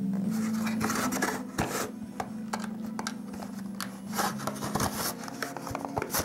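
Cardboard packaging being handled: irregular rubbing and scraping of card with several small sharp knocks, over a steady low tone.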